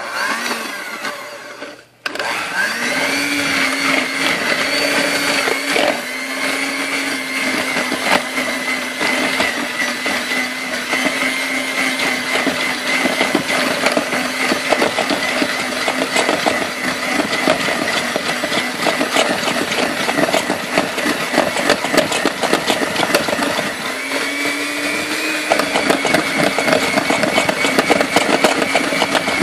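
Electric hand mixer running with its beaters in a plastic bowl of ice cream, milk and crushed cookies. It is switched on about two seconds in, spins up, then keeps up a steady motor whine whose pitch dips briefly now and then.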